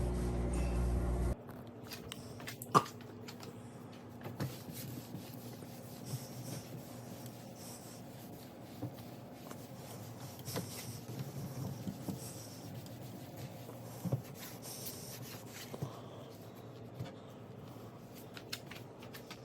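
A steady hum cuts off about a second in, leaving faint rubbing of a microfiber cloth wiping a stainless steel surface, with scattered light clicks and knocks.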